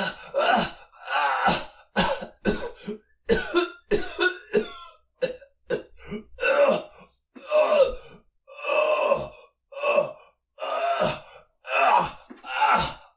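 A man coughing and clearing his throat in a string of separate takes, each cut off into silence. Short sharp coughs come in quick succession early on, and longer voiced ones follow.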